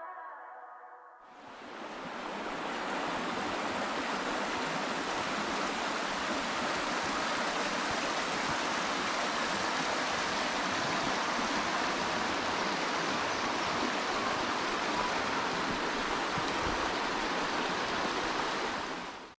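Steady rush of flowing water, starting about a second in and cutting off abruptly at the end.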